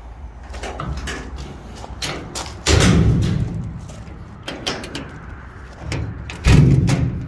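Two slams of the rear metal cargo doors on a 1997 Ford E-350 utility service body, about four seconds apart, each a heavy thud with a short ringing decay, among lighter knocks.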